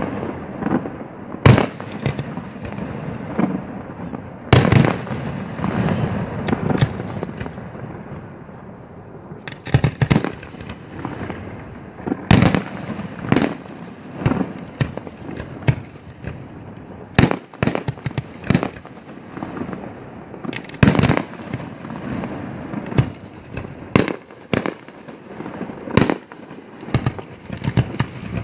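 Large aerial firework shells launching and bursting: more than a dozen sharp, loud bangs at uneven intervals, some close together and some several seconds apart, with rumbling echo between them.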